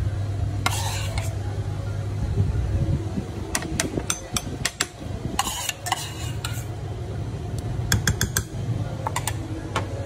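A spoon clinking and scraping against a rice cooker's inner pot while lumps of fat are spooned onto cooked rice: scattered sharp clicks, in small clusters about four, six and eight seconds in. A steady low hum runs underneath.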